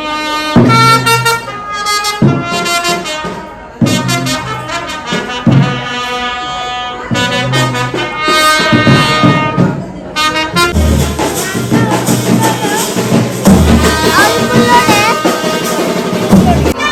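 Ritual music of a Kola: a loud wind instrument plays held notes in short phrases, with deep low notes and voices mixed in during the second half.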